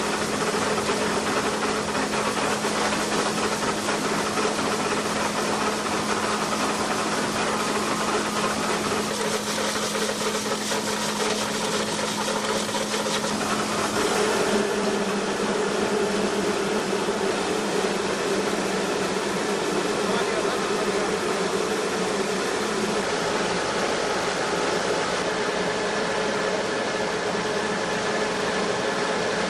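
MLNJ20/15 combined rice mill running steadily while paddy is fed and milled: a constant mechanical hum under a dense rushing noise, its tone shifting slightly about halfway through.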